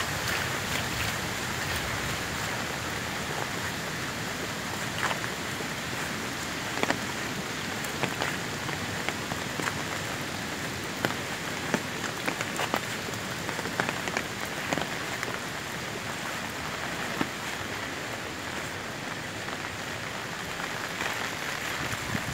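Steady rain falling on a wet dirt road, an even hiss with scattered sharp ticks of individual drops.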